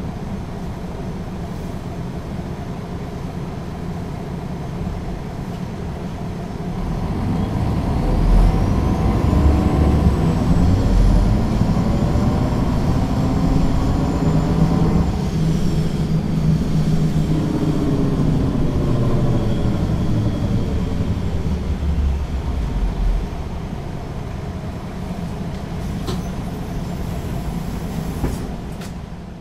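Diesel engine of a MAN NG 313 articulated bus with a Voith automatic gearbox, running under way. About seven seconds in it pulls harder, rising in pitch with a high whine climbing above it. Around the middle the whine falls away as it eases off, and the sound fades out at the very end.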